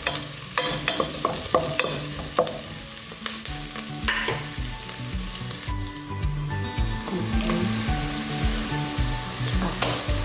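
Sliced onions and aromatics sizzling in hot oil in a pot as the sauté base is started. A wooden spatula clicks and scrapes against the pot several times in the first couple of seconds, and then the sizzling goes on alone.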